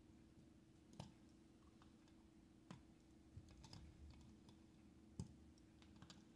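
Near silence with a handful of faint, sharp clicks from small needle-nose pliers working on a die-cast toy truck's metal axle and wheels, the sharpest about five seconds in, over a faint steady hum.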